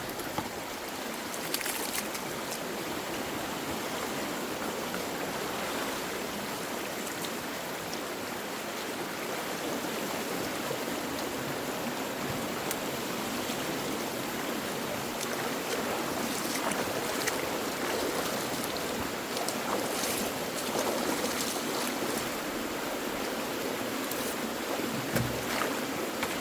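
Water rushing steadily as a backed-up pond drains through a partly unclogged culvert, with rain falling and scattered small clicks and splashes.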